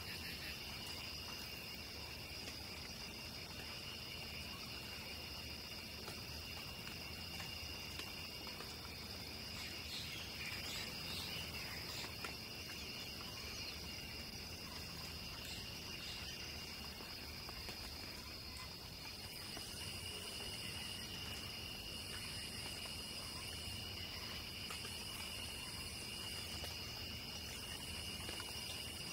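Night insect chorus: crickets trilling steadily at two high pitches, with a few short chirps about a third of the way in. From about two-thirds through, a still higher-pitched insect joins, calling in bursts of about two seconds separated by short gaps.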